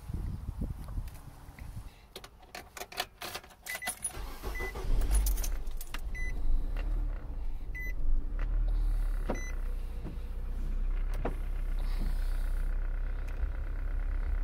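Keys jangling, then a few short electronic beeps as a 2010 Nissan Versa's engine starts and settles into a steady idle, with a couple of knocks inside the car.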